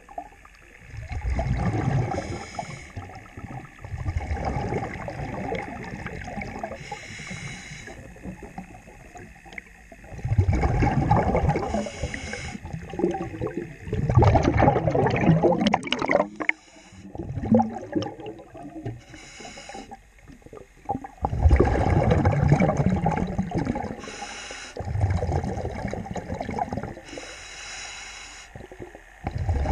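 Diver breathing through a regulator underwater: a short hiss on each inhale and a loud bubbling rumble of exhaled air on each exhale, repeating every several seconds.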